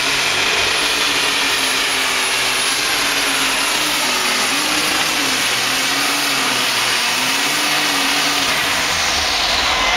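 Super stock alcohol pulling tractor's turbocharged engine at full power, dragging a weight-transfer sled: a loud, steady engine noise with a thin high whine over it, the pitch easing down slightly near the end.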